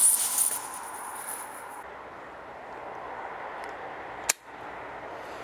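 Green gas hissing from a nearly empty can pressed onto a KJW M9 airsoft pistol's fill valve, giving only vapour and no liquid; the hiss stops about two seconds in. About four seconds in, one sharp crack as the gas pistol fires a shot.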